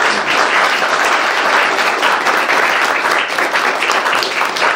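Audience applauding steadily: many people clapping at once in a small room.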